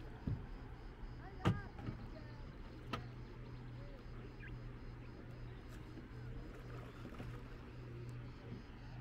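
Kayak paddling on calm water: a few sharp knocks of the paddle against the plastic kayak, with drips and light splashes. The loudest knock comes about a second and a half in. Under them runs a steady low hum.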